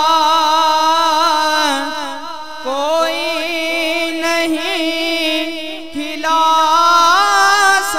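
Devotional Urdu manqabat singing: vocals holding long, wavering, ornamented notes. A new, louder phrase comes in about six seconds in.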